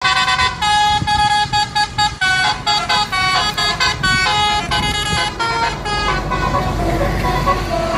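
Bus 'telolet basuri' musical air horn playing a quick tune of stepped, sustained notes, stopping about six seconds in, after which traffic noise remains.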